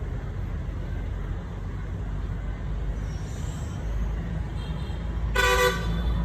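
Steady low outdoor rumble with a short vehicle horn toot about five seconds in.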